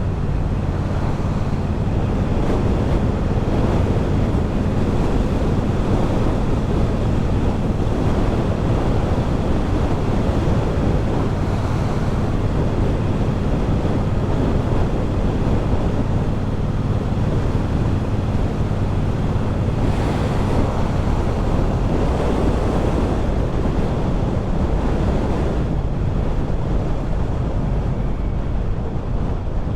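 Wind buffeting the microphone on a moving motorcycle, with the steady drone of a Triumph Bobber's 1200 cc parallel-twin engine underneath, cruising at an even speed.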